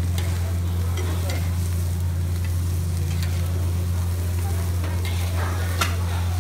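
Fried oyster omelette sizzling on a large flat wok while a metal spatula scrapes and scoops it onto a plate, with scattered clicks of the spatula and one sharp clink near the end. A steady low hum runs underneath.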